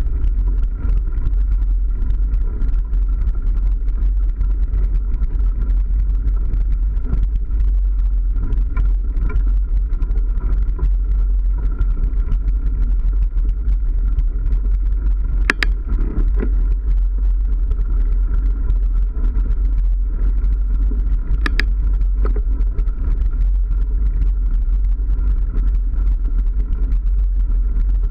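Steady low rumble of wind buffeting a moving action camera's microphone while a mountain bike's tyres roll over a dirt forest track. There are two sharp clicks, about 15 and 21 seconds in.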